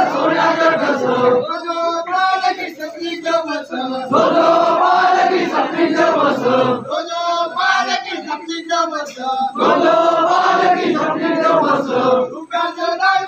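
A large crowd of men chanting together in loud, sung phrases about three seconds long. Between the phrases come thinner stretches of scattered voices, like a call-and-response chant.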